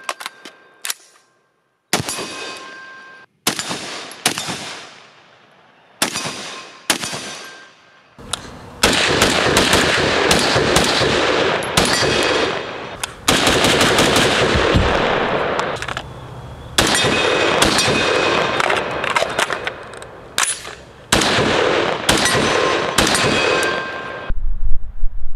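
A .308 AR-10-type rifle with a 12.5-inch barrel firing. First come a few single shots a second or two apart, each report trailing off in an echo; then, from about eight seconds in, long strings of rapid fire with brief pauses between them.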